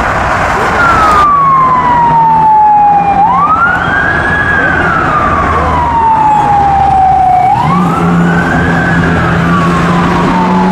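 A siren wailing. Its pitch falls slowly over about two and a half seconds, then sweeps quickly back up, repeating about every four seconds over steady traffic noise.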